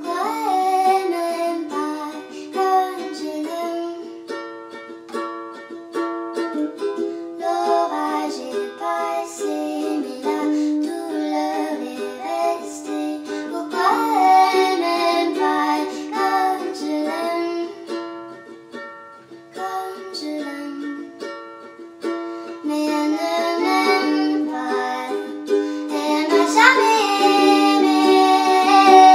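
Nightcore (sped-up, pitched-up) edit of a French pop song: a high female voice sings in French over light plucked-string backing, with long sliding sung notes about a second in, halfway through and near the end.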